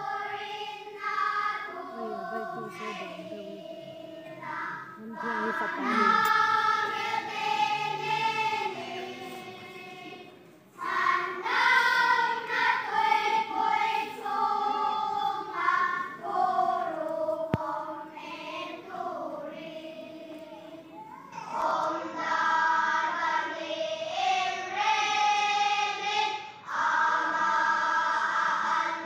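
Children's choir singing in phrases of held notes, with a brief drop-off about a third of the way through before the next phrase comes in.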